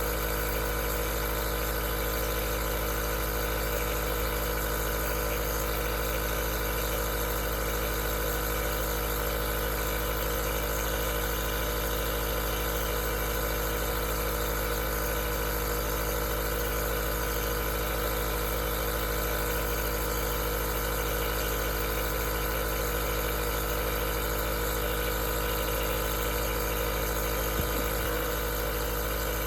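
Aerosol nebulizer's compressor running steadily: an even motor hum with a hiss of air over it, unchanging throughout.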